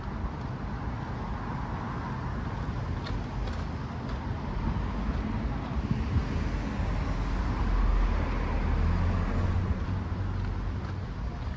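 A motor vehicle running nearby, its low engine rumble growing louder to a peak about eight seconds in, then easing off.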